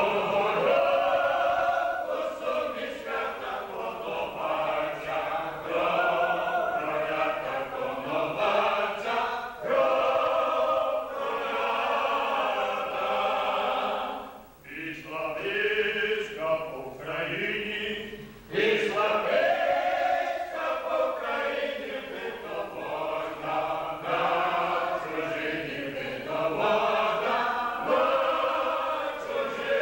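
Mixed choir of men's and women's voices singing unaccompanied, a mournful Ukrainian song lamenting a fallen leader, in long phrases with brief breaks about 14 and 18 seconds in.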